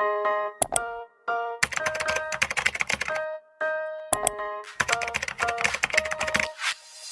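A phone ringtone tune: short electronic notes in a melody over clicking percussion, in phrases broken by brief pauses.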